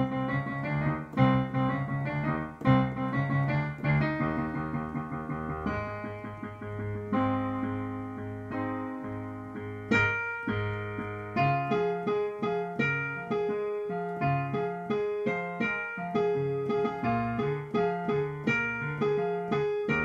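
Yamaha digital piano playing a piano accompaniment in a steady rhythm: chords over a bass line, changing about halfway through to a higher, repeating figure.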